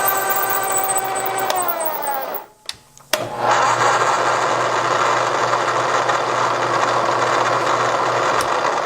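Machine spindle motor running a 14 mm spark plug tap into a cast Sportster cylinder head, cutting the threads. The motor winds down with a falling pitch and stops about two seconds in, then starts again sharply about three seconds in and runs steadily.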